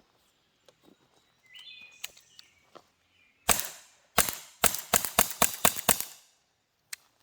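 A rapid string of about ten shots from CO2-powered less-lethal pistols firing water balls, about four a second, starting about halfway through. A single light click comes near the end.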